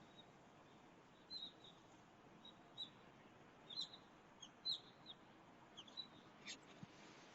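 Small birds chirping faintly: short high chirps scattered irregularly, with a few quick downward-sweeping calls.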